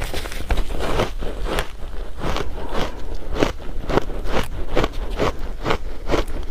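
A person biting and chewing ice close to the microphone: a run of crisp crunches, about two or three a second.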